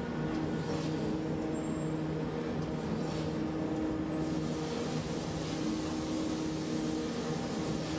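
Metal-forming machinery running with a steady, unbroken hum made of several low tones while it works a steel scuba-cylinder shell.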